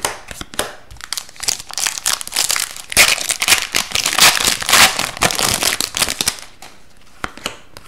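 Hockey cards flicked through by hand with light clicks. About three seconds in, a foil-wrapped Upper Deck 2022-23 Series 2 hockey card pack is torn open and crinkled for a few seconds, then it goes quieter as the cards are slid out.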